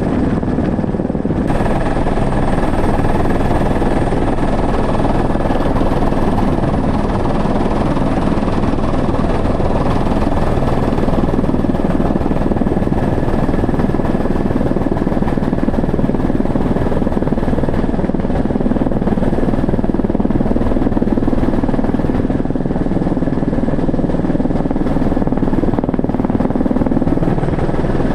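Helicopter in flight, its rotor and engine running steadily, heard from inside the cabin as a loud, unbroken rumble with a steady high whine over it.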